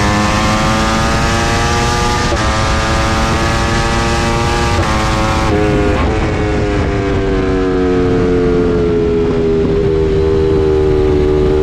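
Ducati Panigale V4's 90-degree V4 engine heard from an onboard camera at speed on track, its engine note falling steadily and breaking briefly a few times, over a rush of wind noise.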